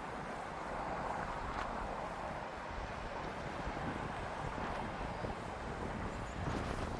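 Steady outdoor background noise, with wind buffeting the microphone as a low rumble.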